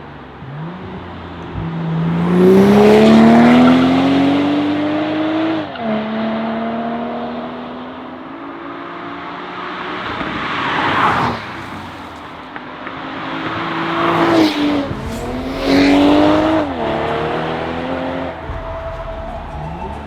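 BMW 840i's turbocharged 3.0-litre inline-six, heard through an aftermarket valved turbo-back exhaust, accelerating in several hard pulls. The pitch climbs steadily and drops sharply at each upshift, with loud rushing swells as the car goes by.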